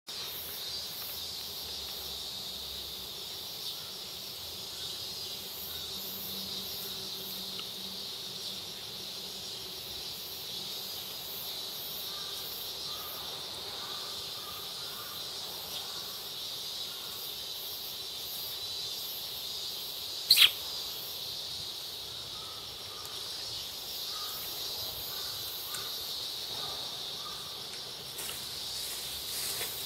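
Steady high-pitched drone of insects. About two-thirds of the way through, a brief, loud, sharp high sound comes twice in quick succession.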